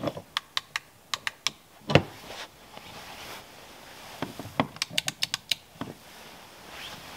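A nylon sleeping bag and bedding rustling as a person shifts and spreads it out on the car bed, with a run of sharp, irregular clicks and ticks in two clusters, one near the start and a denser one after about four and a half seconds.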